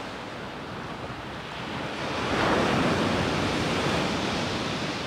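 Rough, stormy surf breaking and surging on a shingle beach, swelling about two seconds in and then easing, with wind buffeting the microphone.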